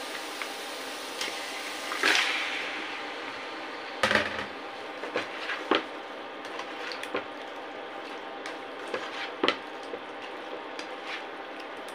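Raw chicken and potatoes going into hot oil and spice paste in a nonstick karahi: a burst of sizzling about two seconds in, then loud knocks and clatter about four seconds in, followed by scattered clicks of a spatula stirring, over a steady frying hiss.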